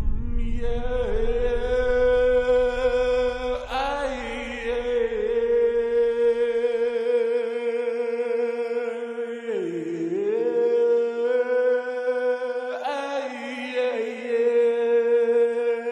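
Soundtrack music: a chanting voice holding long, steady notes with slow wavering ornaments and a brief dip in pitch about ten seconds in, in a Middle Eastern style. A deep rumble fades away underneath over the first several seconds.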